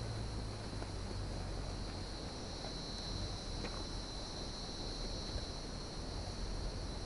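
Insects droning steadily at a high pitch, one unbroken tone that holds without change.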